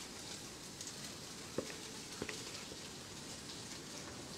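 A faint steady hiss with a few light knocks of a knife on a wooden chopping board.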